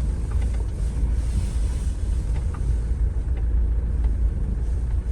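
Car moving along: a steady low rumble of engine and road noise with a few faint ticks.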